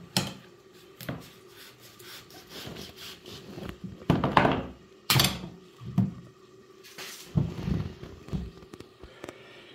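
Hacksaw blade rasping through a wedge of cold, partly frozen pumpkin in a few uneven strokes, the loudest a little after 4 s and about 5 s in. Pumpkin pieces thud and knock on a wooden board.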